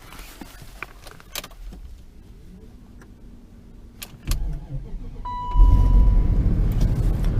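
Keys clicking in the ignition, then a BMW's starter cranking for about a second before the engine catches and runs with a steady low rumble. The quick start shows the battery is holding its charge. A short steady dashboard beep sounds as the engine fires.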